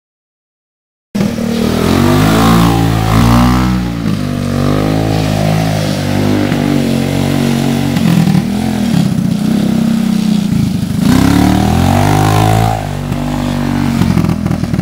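ATV engine running as the quad is ridden over dirt and grass, revving up and easing off several times. It starts about a second in, after a silent moment.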